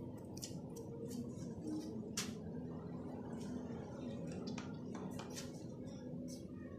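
Raw chicken pieces being turned by hand with spices in a steel bowl: irregular wet squelches and clicks over a low steady hum.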